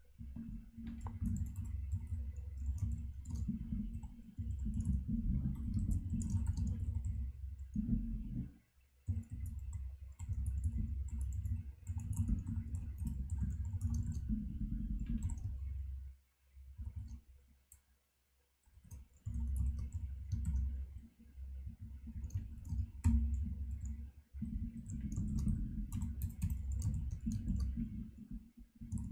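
Computer keyboard typing in quick runs of keystrokes. It breaks off briefly about eight seconds in, then pauses for about three seconds a little past the middle.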